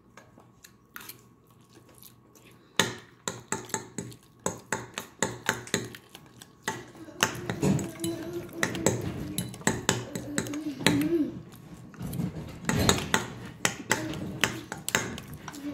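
A plastic spoon clicking and scraping against a plate as macaroni and cheese is eaten fast, together with close-up chewing and mouth sounds. It is sparse for the first few seconds, then the clicks come quickly and closely packed.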